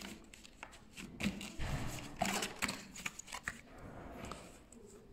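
Paper leaflets and a cardboard box being handled: rustling with a string of irregular soft clicks and taps, busiest in the middle.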